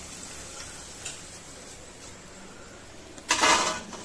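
Low steady hiss of potato sticks frying in oil, then, about three seconds in, a short loud clatter as a wire spider strainer of fries is tipped onto a steel plate.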